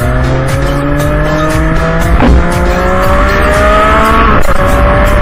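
Sport motorcycle engine accelerating, its note climbing steadily, with a brief break about two seconds in, over background music.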